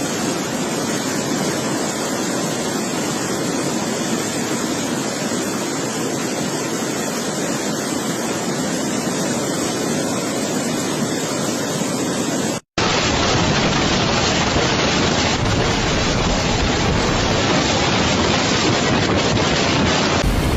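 Steady rushing noise of water with wind buffeting the microphone. About two-thirds of the way through it cuts off for an instant and resumes heavier and deeper.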